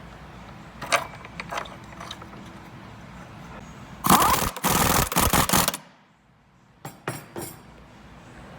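Impact wrench hammering a shock mount bolt tight in one loud rattling burst of under two seconds, about four seconds in. A few short metallic clicks and clanks come before and after it.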